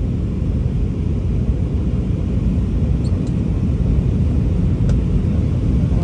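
Steady low rumble of an airliner in flight, heard inside the passenger cabin during the descent.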